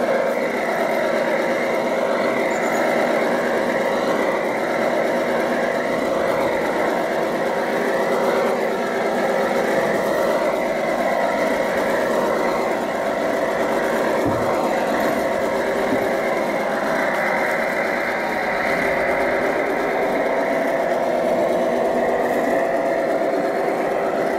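Gauge 1 model Nohab diesel locomotive's ESU sound decoder playing a diesel engine running steadily through the model's small loudspeaker, with the train rolling along the track.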